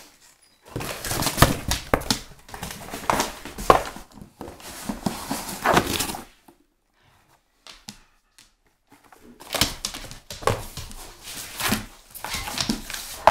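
German shepherd tearing and chewing cardboard: crackly ripping and crunching in two long stretches, with a quiet pause of about three seconds in the middle.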